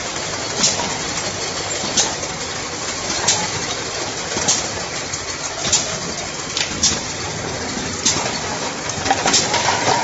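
Monobloc bottle filling and capping machine running, a steady mechanical clatter with a short sharp burst in the high range about every second and a quarter, as the machine cycles.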